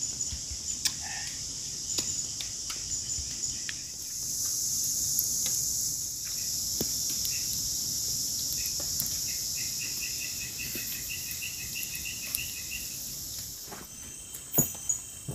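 Night-time chorus of crickets and other insects in tropical forest: a steady high-pitched buzz, swelling louder for a couple of seconds about four seconds in. Scattered light clicks run under it, and from about nine to thirteen seconds in another creature calls in a quick run of repeated notes.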